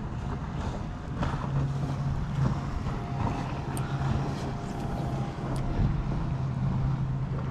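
Boat engine running with a steady low hum, with wind on the microphone.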